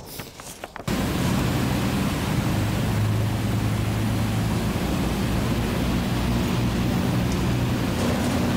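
Avro Lancaster's Rolls-Royce Merlin engine running steadily just outside the hangar: a constant low engine drone under a heavy rushing noise, starting abruptly about a second in.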